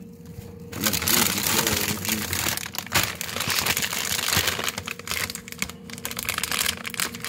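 Plastic bag of frozen french fries crinkling as it is grabbed, shaken and squeezed by hand, starting about a second in and loudest at first, then going on in irregular crackles, over a faint steady hum.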